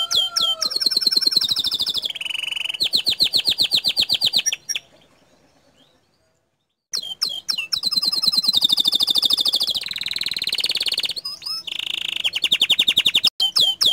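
Domestic canary singing: fast trills and rolls of rapidly repeated high notes, broken off for about two seconds in the middle before the song starts again.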